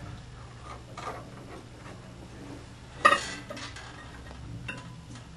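Metal weight plates and hanging chains clinking on a model bridge's load-test rig as weight is added. One sharp, ringing clank comes about three seconds in and a lighter clink shortly after, over a steady low hum.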